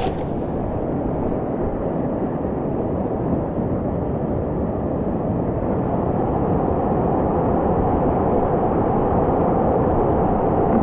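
Whitewater rapid on the River Usk rushing steadily around a kayak. The sound turns dull and muffled about half a second in, with its hiss cut away.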